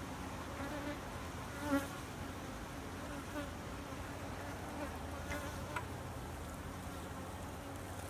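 Honeybee colony buzzing steadily in an opened nucleus box as its frames are worked, with a few light knocks of the metal hive tool against the wooden frames, the clearest about two seconds in.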